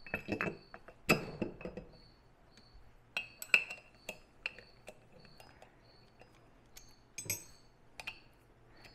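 Steel lathe adapter parts and cap screws handled on a workbench: scattered metal clinks and clicks as the plate is seated and screws are picked up, in small clusters with the sharpest clink around the middle.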